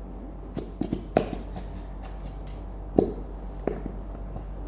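Irregular sharp clicks and knocks from a plastic glue bottle being handled and worked, with a cluster of taps about a second in and one loud knock about three seconds in, as the thick glue will not come out.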